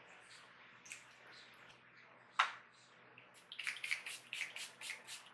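A makeup setting spray's pump mister being pumped in a quick run of short hissing sprays, about five a second, starting around three and a half seconds in. Shortly before, a single sharp click is the loudest sound.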